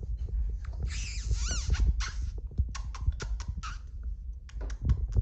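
34-day-old Dalmatian puppies giving a few short, high squeaks about a second in, followed by a run of light clicks and taps.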